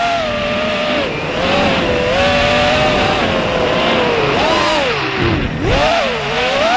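FPV racing quadcopter's brushless motors and propellers whining, heard through its onboard camera. The pitch holds fairly steady for a few seconds, then drops sharply and climbs back twice near the end as the throttle is chopped and reapplied.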